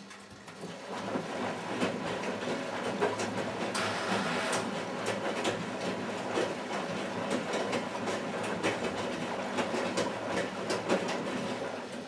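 Miele Automatic 416 front-loading washing machine tumbling its wash: the drum starts turning about a second in, with the motor's low hum, wet laundry sloshing and many irregular clicks and knocks, and it eases off near the end.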